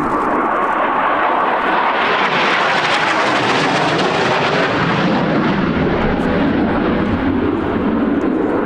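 Rolls-Royce Pegasus turbofan of a Harrier jump jet making a pass. The jet noise grows brighter to a peak about three to four seconds in, then fades back toward a duller rumble.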